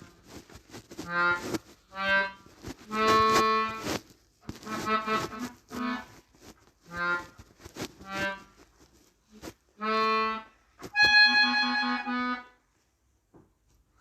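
Melodica playing a series of short, separate notes with pauses between them, and a longer, higher-pitched passage near the end.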